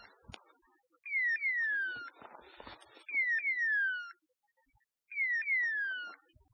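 Electronic beeper collar on a pointing setter in point mode: a pair of falling whistle-like tones repeated every two seconds, signalling that the dog is standing on point. A short rustle of brush or handling comes between the calls about two seconds in.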